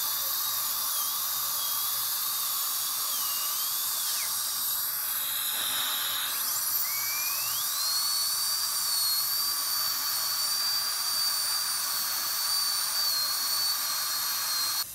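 Dentist's high-speed handpiece drilling a tooth to prepare it for a tooth-colored filling. A high whine wavers and dips, stops about four seconds in, then spins back up about two seconds later to a steadier, higher whine. It cuts off just before the end, over a constant hiss.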